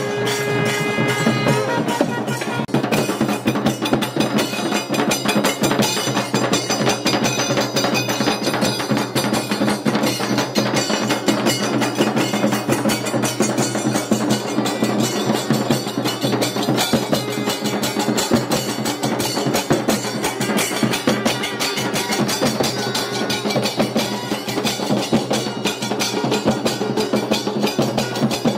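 Festival procession percussion band playing drums and metal percussion in a loud, fast, unbroken beat.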